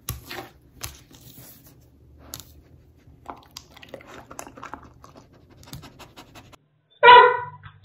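A curly-coated dog's claws scratching and clicking faintly on a granite countertop as it noses along the surface. About seven seconds in comes a short, loud, high-pitched dog whine.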